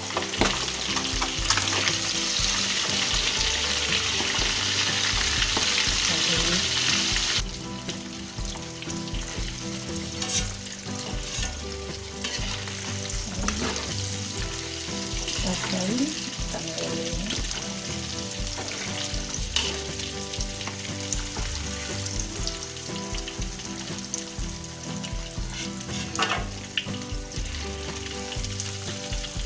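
Spice-marinated catfish pieces sizzling in hot oil in a wok. The sizzle is loud at first, then drops abruptly to a quieter crackle about seven seconds in, with a few sharp clicks later on.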